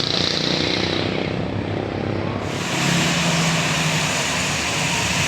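A bus passing close by: engine running and road noise. A broad rushing hiss comes in sharply about two and a half seconds in.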